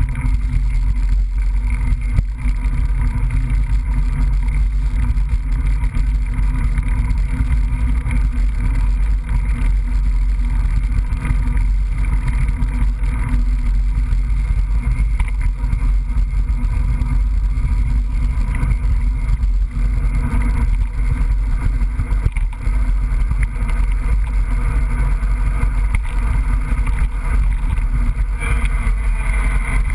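Steady rumble and wind noise on a GoPro camera carried on a mountain bike riding a trail.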